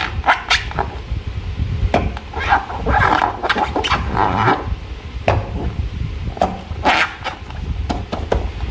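Close-up handling of slime and a balloon: irregular squishing, sticky squelches, taps and light scrapes, over a steady low rumble of handling noise.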